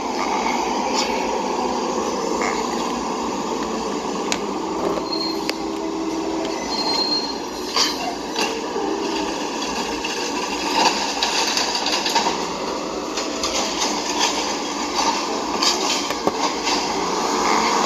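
Automated side-loader garbage truck running on the street: a steady diesel engine noise with short high squeals and scattered clanks.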